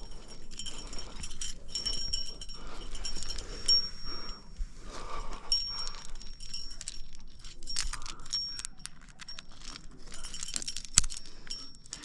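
Climbing rack gear, carabiners and cams on a harness, jangling and clinking with faint metallic ringing as the climber moves up the crack. One sharp metal click stands out near the end, as a carabiner is handled at a piece of protection in the crack.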